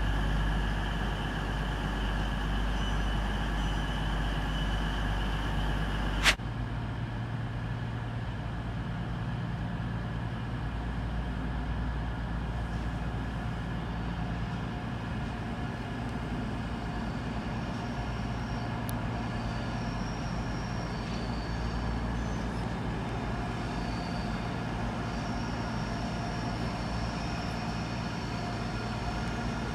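A Class 222 Meridian diesel multiple unit's engines running at the platform, a steady hum with level whining tones. About six seconds in a sharp click cuts it off. After that comes a steadier, slightly quieter low hum of trains in the open, with faint high tones coming and going near the end.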